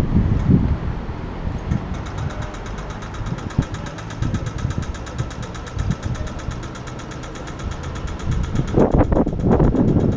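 City street traffic rumbling at an intersection, with a pedestrian crossing signal ticking rapidly from about two seconds in: the walk-phase tone. The ticking stops shortly before the end, as the traffic rumble grows louder.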